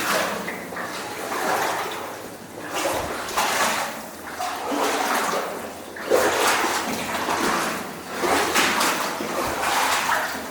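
Legs wading through deep water in a flooded mine tunnel, a splash and slosh with each stride, returning about every two seconds.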